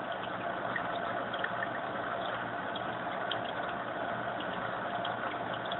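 Fluval AquaClear 70 hang-on-back aquarium filter on its high flow setting: a steady trickle of water spilling from the return lip into the tank, with a faint motor hum beneath and small scattered drips.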